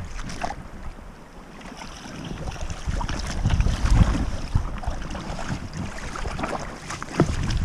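Shallow river water running, with wind buffeting the microphone and small splashes as a hand works in the water beside a Chinook salmon lying in the shallows.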